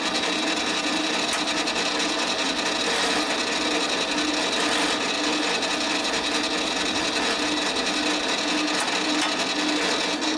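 Mini lathe running steadily as a half-inch drill bit feeds into spinning brass stock, a continuous whine with the scraping of the cut. The lathe is switched off and the sound dies away right at the end.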